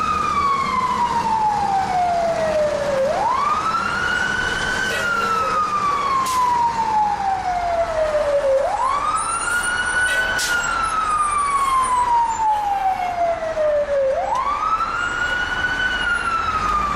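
Fire engine siren on a slow wail, heard from inside the cab. Each cycle climbs quickly, then falls slowly, about one cycle every five and a half seconds, three climbs in all, over the truck's low rumble.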